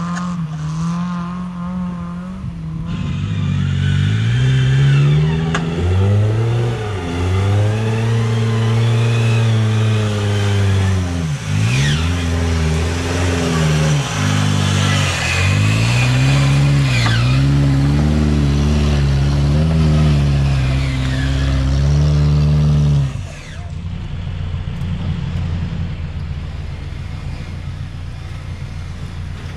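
Off-road 4x4's engine revving hard for about twenty seconds, its pitch rising and falling with several sharp dips as the throttle is lifted and reapplied. It then drops abruptly to a low, steady rumble.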